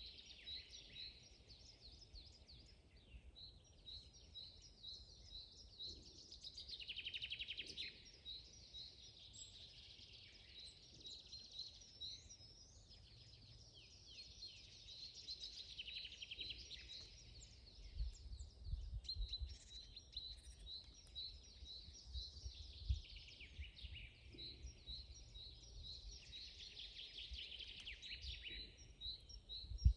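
Forest birds singing: one bird repeats a short high chirp about three times a second, while others add fast trills. A low rumble runs underneath.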